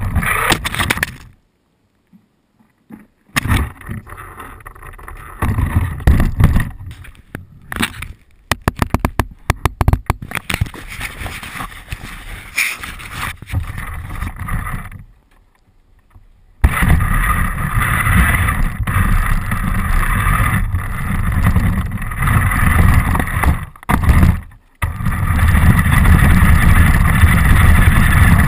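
Radio-controlled car driving with the camera riding on it: loud stretches of motor and rough rolling noise over the ground, broken by a few short stops where it goes almost silent, and a quick run of clicks about eight to ten seconds in.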